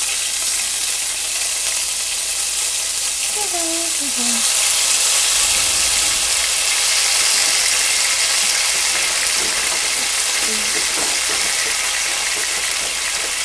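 Minced jarred garlic frying in hot vegetable oil in a nonstick skillet, a steady loud sizzle that starts as the garlic hits the oil; it is being browned lightly.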